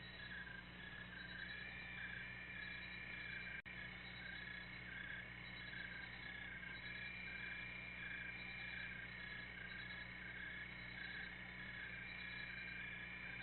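Faint, steady night chorus of small calling creatures, chirping in repeated pulses, over a low steady hum. The sound cuts out for a split second about three and a half seconds in. No explosion or rumble stands out.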